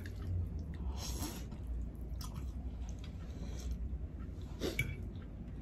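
Mouth sounds of people eating pansit canton noodles: soft chewing with scattered wet clicks and smacks, over a low steady hum.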